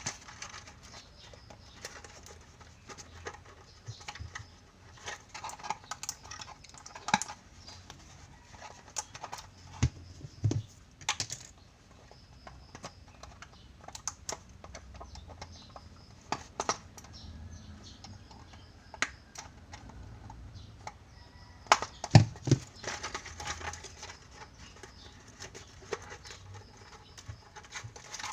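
Hands handling a small hard-plastic toy and its packaging: irregular light clicks and taps, with a few louder knocks.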